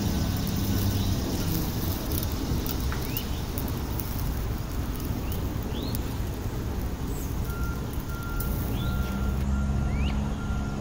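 A motor vehicle's engine running with a low hum that eases off about two seconds in and comes back near the end, with short rising bird chirps now and then.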